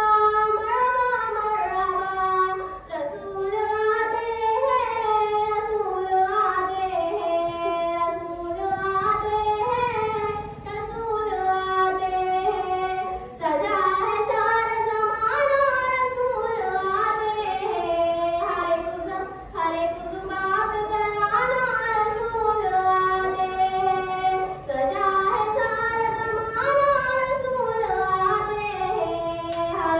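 A girl singing an Urdu naat, a devotional poem in praise of the Prophet, solo into a microphone with no instruments. She sings in long melodic phrases and pauses briefly between lines.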